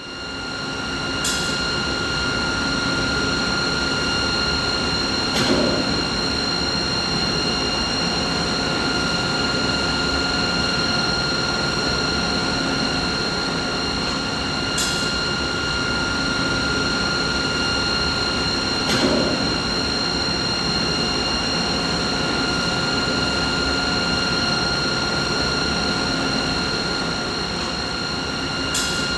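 Steady machinery hum and hiss with a constant high-pitched whine and its overtones, fading in at the start. A few faint sharp ticks and soft low swells recur about every thirteen to fourteen seconds, as in a looped recording.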